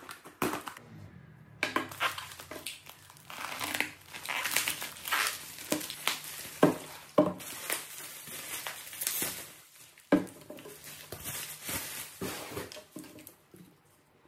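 Cardboard box and plastic packaging rustling and crinkling as a parcel is opened and unpacked by hand, with a few sharp knocks as items are set down on the table.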